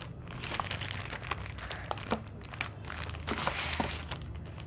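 A clear plastic wrapper crinkling and rustling as it is handled and pulled open, with many small sharp crackles.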